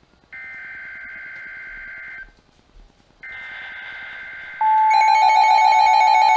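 NOAA Weather Radio alert coming through weather alert radios: two bursts of screeching digital SAME header data, each about two seconds long with a short gap between. Then, about four and a half seconds in, the steady 1050 Hz warning alarm tone starts and the radios set off their own loud beeping alarms, the sign that they have been activated for a warning.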